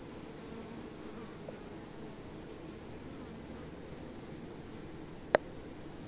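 A cluster of honey bees humming steadily over their comb, with a steady high-pitched whine above the hum. One sharp click comes about five seconds in.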